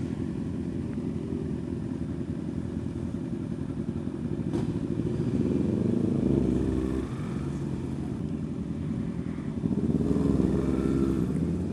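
Yamaha R15 motorcycle's single-cylinder engine running at low speed, with two louder stretches of engine revving, about five seconds in and again about ten seconds in.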